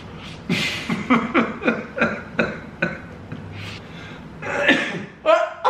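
A man coughing and spluttering on a mouthful of chicken nugget, a quick run of coughs into a napkin, about three a second, hard enough that food comes back out.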